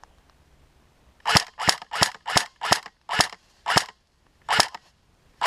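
Airsoft gun firing single shots: after a short lull, about nine sharp cracks, around three a second at first, then spacing out.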